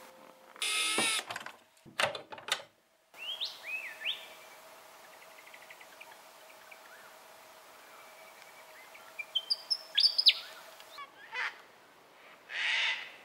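Edited sequence of bird calls. A short loud sound and a few clicks come in the first three seconds. Then a willie wagtail chirps in quick rising phrases over a faint steady hum, and near the end white cockatoos give a harsh screech.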